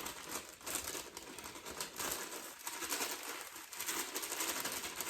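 Packaging crinkling and rustling in the hands, with irregular crackles as ingredients are picked up and handled.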